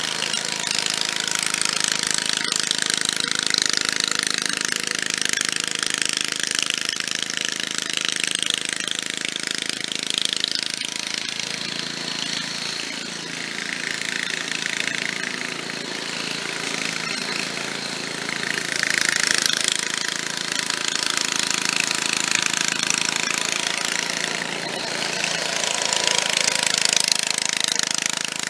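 Late-1960s Snapper rear-engine riding mower running under load while cutting grass, its Briggs & Stratton engine overlaid by a loud, hard rattle that the owner puts down to the mower deck, or maybe the muffler. It swells louder as the mower comes close, about two-thirds of the way in and again near the end.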